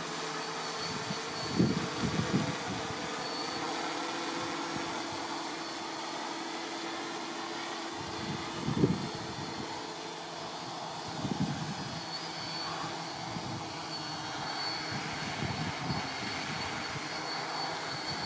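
Multirotor drone's propellers whirring steadily as it descends on return-to-home and sets down. Wind buffets the microphone in several low gusts.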